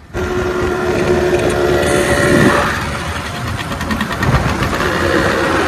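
Yamaha RX100's two-stroke single-cylinder engine running as the bike rides off, its silencer still without the mesh baffle (jaali), so the exhaust is open and loud. The engine gets louder about two seconds in, then settles.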